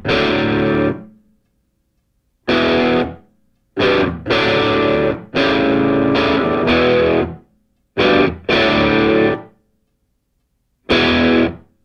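Rock music: distorted electric guitar chords played in stop-start stabs, each cut off sharply into silence.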